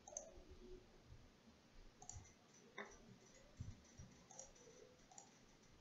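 Quiet room tone with a few faint, scattered computer mouse clicks, the sharpest about three seconds in.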